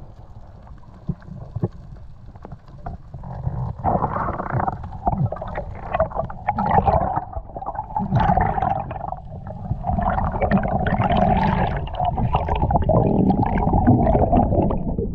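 Underwater sound picked up by a camera submerged on a reef: low muffled rumble of moving water with gurgling bubbles and scattered clicks, louder from about four seconds in.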